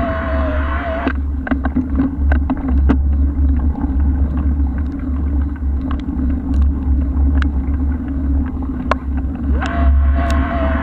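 Steady low rumble and wind buffeting on a camera mounted on a moving bike, with scattered sharp clicks and rattles.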